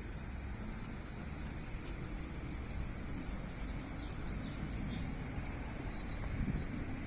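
Cicadas droning steadily in one high, unbroken buzz over a low rumbling background, with a few short bird chirps about four to five seconds in.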